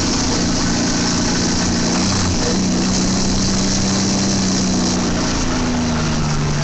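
Bus engine running steadily, over a constant hiss of street noise.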